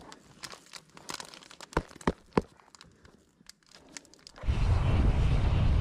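Crunching, crackling and clicking as a cycling shoe is pulled off and handled on dry grass and twigs, with three sharp knocks about two seconds in. Near the end this gives way abruptly to a loud steady rush of wind noise.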